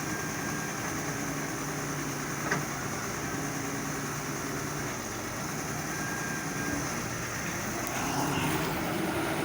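Excavator's diesel engine running steadily, with a single sharp click about two and a half seconds in. The engine grows a little louder near the end.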